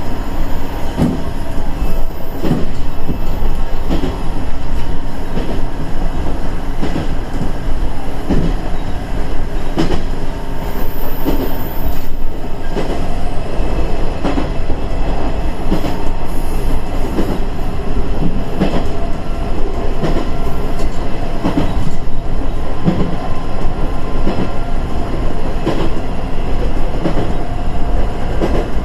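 KiHa 110 series diesel railcar running along the line, heard from inside the car: a steady diesel engine and running noise, with the wheels knocking over rail joints every second or two.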